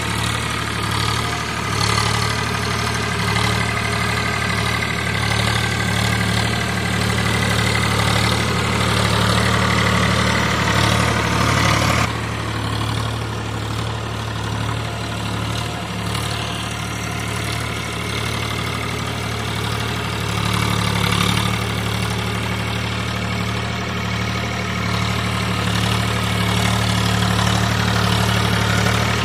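VST Shakti 9045 DI tractor's diesel engine running steadily while pulling a tine cultivator through soil. The sound changes abruptly about twelve seconds in, then the engine runs on steadily.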